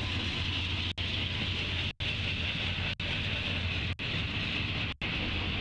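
Double-stack intermodal freight train passing at speed, a steady rolling rumble with a hiss above it, cut by brief dropouts about once a second.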